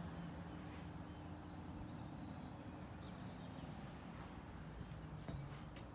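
Faint outdoor ambience: a few brief, high bird chirps over a steady low hum.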